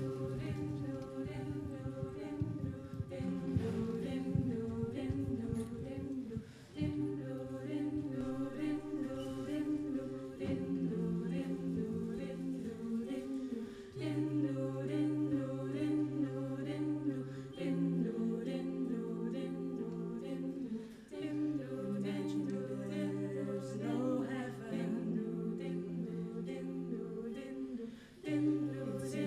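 Mixed a cappella vocal group singing sustained chords in close harmony, without instruments. A low bass line holds each note for a few seconds before moving to the next.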